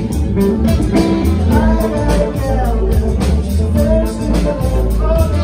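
Live band playing: electric guitar, bass, drums and saxophone, with a man singing lead.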